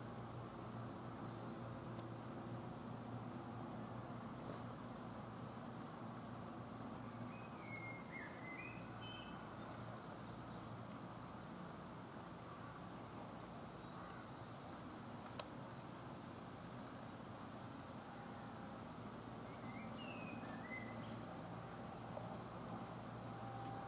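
Quiet woodland ambience: steady low background noise with two brief bird chirps, about eight and twenty seconds in, and a single sharp click about midway.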